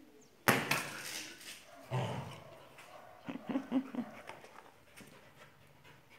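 A dog vocalising: a sudden loud burst about half a second in, then a quick run of short, pitched whining yelps a little past the middle.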